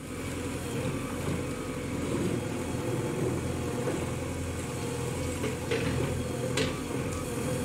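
JCB 3DX backhoe loader's diesel engine running steadily while the backhoe arm works its bucket through wet mud. Two short, sharp knocks come about two-thirds of the way through.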